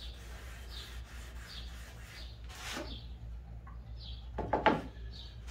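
Cloth rag rubbing denatured alcohol across a wenge end-grain cutting board in faint, scattered strokes. A few short knocks and rustles come about four and a half seconds in as the rag and the metal alcohol can are handled.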